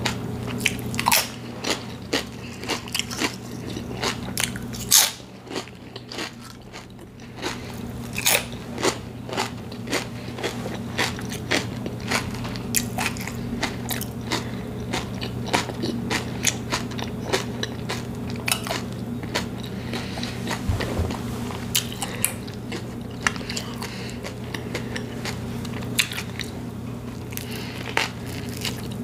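Close-miked chewing and crunching of potato chips, with many sharp crunches, the loudest about five seconds in. Near the end, a bite into a soft sub sandwich.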